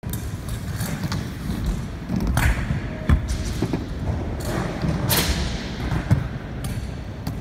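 Kick scooter rolling over wooden ramps and a concrete floor, a steady low rumble from its small wheels, with a couple of sharp thuds as it hits the ramps, in a large hall.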